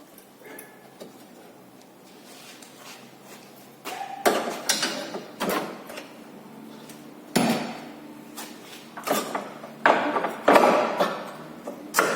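Hammer blows on the seized lower ball joint and steering knuckle of a 2012 Ford Fiesta's front suspension, struck to break the corroded joint loose. About ten sharp, irregular metal strikes with short ringing, starting about four seconds in.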